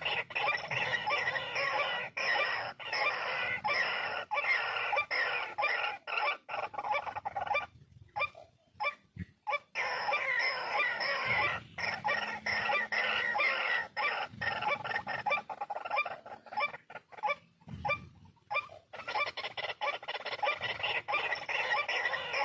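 White-breasted waterhen (ruak-ruak) calling: a dense run of rapid, repeated notes, breaking off briefly about eight seconds in and again near eighteen seconds.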